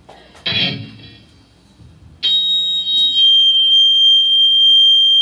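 A brief burst of sound about half a second in, then a sudden loud, steady high-pitched whistling tone from about two seconds in that holds for about three seconds: electric guitar amplifier feedback squealing on stage.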